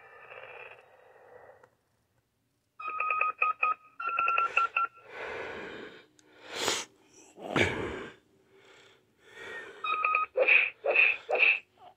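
Power Rangers Cosmic Fury toy morpher's small speaker giving electronic beeps and sound effects as its buttons are pressed: after a brief pause, quick runs of beeps, then a few noisy whooshing effects, then more beeps near the end.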